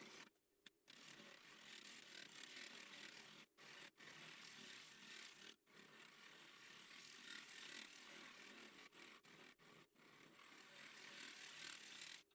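Faint, continuous scraping of a turning tool cutting the oak bowl's bottom on the lathe, broken by several brief pauses where the tool comes off the wood.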